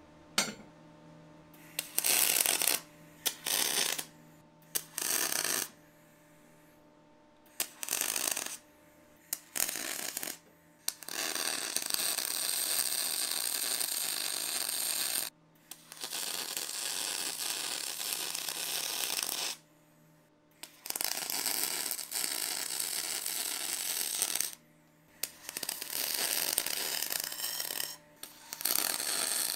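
Electric arc welding on aluminium tube, a crackling hiss that comes and goes with the arc. First there are several short bursts of about a second, like tack welds. After about eleven seconds come longer beads of three to four seconds with short breaks between them.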